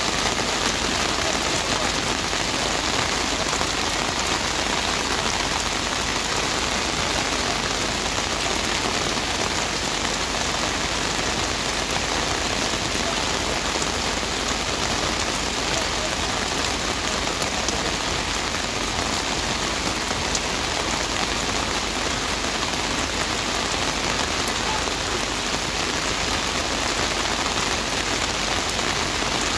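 Heavy rain falling steadily, an even, unbroken downpour with no let-up.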